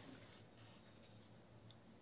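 Near silence: a faint, steady low room hum.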